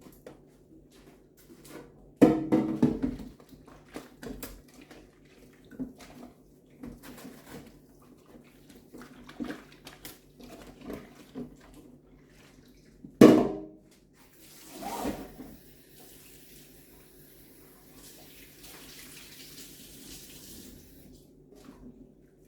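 Plastic fridge tray being washed out at a sink: knocks and clatters of the tray against the sink, loudest about two seconds in and just past the middle, then a tap running steadily for several seconds.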